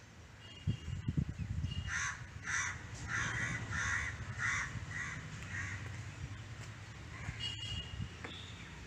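A crow cawing, a run of about eight harsh caws roughly two a second. A few low thumps come about a second before the cawing starts.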